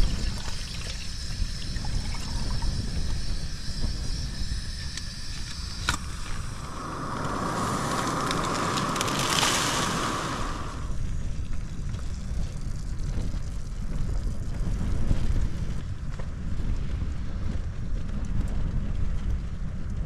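Gas camping stove burning under a pot, with a steady low rumble of wind against the tent. About seven seconds in, a plastic food pouch is handled, making a louder rustle for about four seconds.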